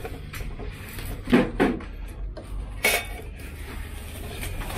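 Thin sheet-metal scrap part knocking and clanking as it is handled and turned over in gloved hands, with a couple of sharp knocks about a second and a half in and a bright clink near three seconds.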